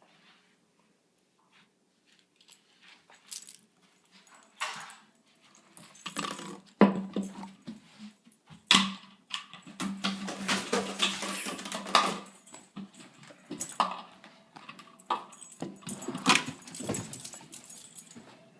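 A dog moving about, its collar tags jangling, among irregular knocks and rustling, busiest in the middle and again near the end.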